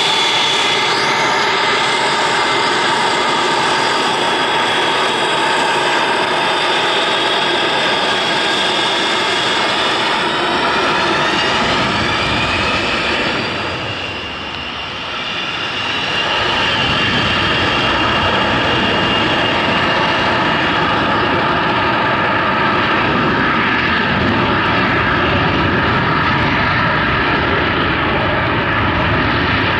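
Boeing 727-281 Advanced Super 27's three Pratt & Whitney JT8D turbofans: a loud whine while taxiing onto the runway that rises in pitch around 12 seconds in as the engines spool up. After a brief dip it becomes a heavier, deep rumble at takeoff thrust as the jet starts its takeoff roll.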